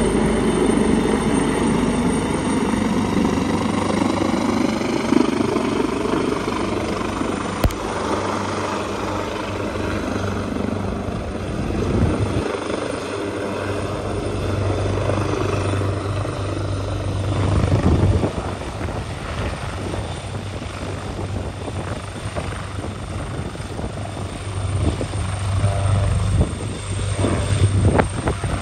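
Leonardo AW139 twin-turbine police helicopter descending, hovering low and touching down, its rotor and turbine noise loud throughout. In the first half a set of high tones falls steadily in pitch. From about halfway a steady low hum holds as it settles onto the ground with the rotors still turning.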